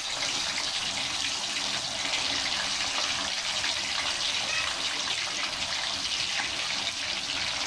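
Chicken and vegetable skewers deep-frying in hot oil in an iron wok: a steady sizzle with fine crackling.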